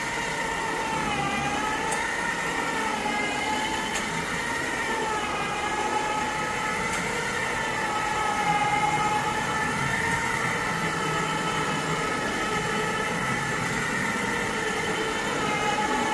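Carpet-cleaning extraction equipment running as a stainless-steel powered extraction tool is pushed over carpet. It gives a steady high whine that wavers slightly in pitch.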